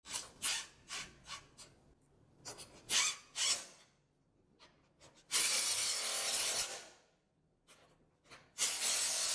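Cordless impact wrench running down the steel bolt nuts of a grooved pipe coupling. It goes in a string of short bursts, then two longer runs of about a second and a half each, tightening the coupling's bolt pads toward metal-to-metal contact.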